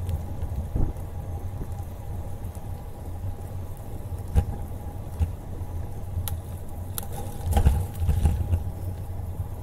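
Wind rumble on the microphone of a bicycle-mounted camera while riding, with road noise from the tyres. A few sharp clicks and rattles come from bumps, most of them in the second half.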